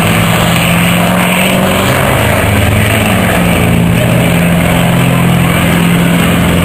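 Heavy truck diesel engine running loudly. Its pitch changes a few times early on, then holds steady.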